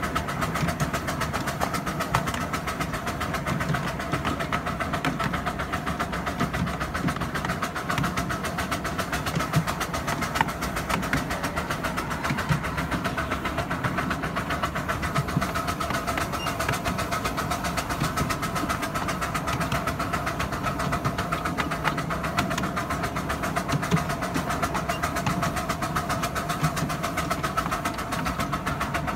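7¼-inch gauge miniature steam train running along its track: a steady rumble of wheels on rail with fine, rapid clicking and a constant ringing tone from the running gear.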